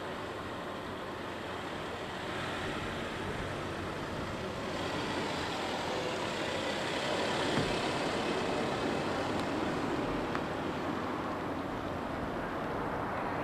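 A Saab 9-5 funeral limousine driving slowly past at close range, its engine and tyres on tarmac growing louder to a peak about halfway through and then fading as it moves away.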